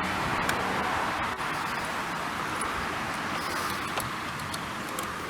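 Steady background noise with a few faint light clicks, as a small clip and screw are handled at a car door panel.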